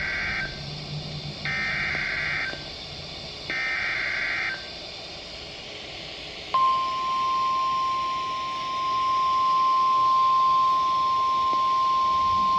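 NOAA Weather Radio emergency alert: three short bursts of screechy SAME header data tones, then about six and a half seconds in, the steady 1050 Hz warning alarm tone starts and holds. Together they mark the start of a new warning broadcast.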